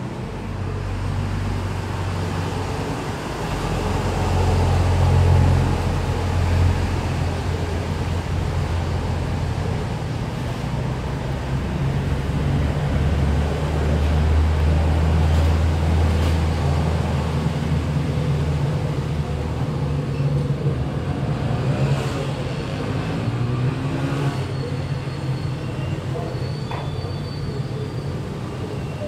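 Low, steady engine rumble like a running vehicle, its pitch stepping up and down now and then.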